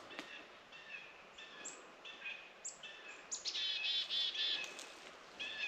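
Small songbird calling: a series of short high notes about two a second, breaking into a fast chattering run in the middle.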